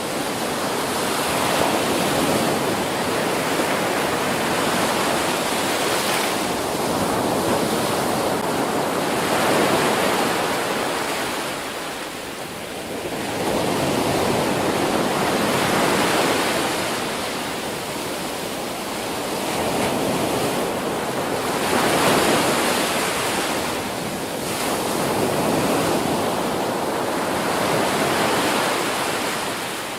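Ocean waves breaking on a beach: a continuous rush of surf that swells and eases every few seconds as each wave comes in.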